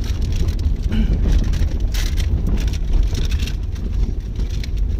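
Maruti Suzuki Alto K10 driving up a rough, stony dirt track, heard inside the cabin: a steady low rumble with frequent short knocks and crunches as the tyres roll over loose stones and the car jolts.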